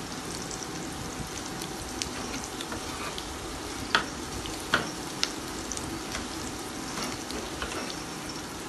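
Diced onions sizzling steadily in a frying pan, with a few sharp knife taps on a wooden chopping board as tomatoes are diced, the loudest about four and five seconds in.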